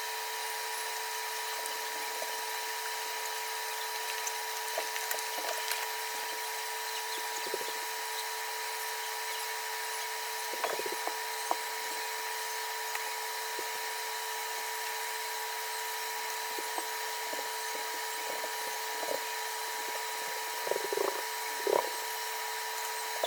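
Kikiam frying in oil in a small nonstick pan: a steady sizzling hiss over a constant hum, with a few light knocks and scrapes from a utensil about ten seconds in and again near the end.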